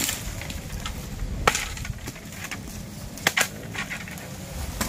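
Dry bamboo sticks cracking: a few sharp snaps, one about a third of the way in, two close together a little past halfway and one at the end, over a low rustle of dry bamboo litter.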